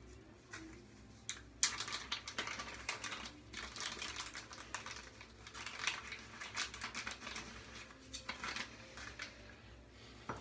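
Plastic wrapping crinkling and crackling as it is handled and pulled off a safety razor head, in dense irregular rustles starting about one and a half seconds in.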